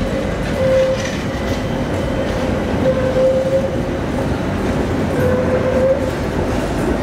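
Milan metro train running: a steady rumble of wheels on rail with a faint whine that wavers in pitch and swells now and then.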